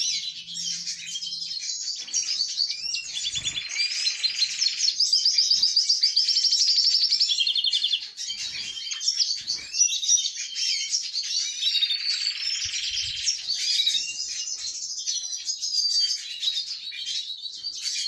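Canaries and other small finches chirping and trilling at once, a busy high twittering with a long fast trill in the middle.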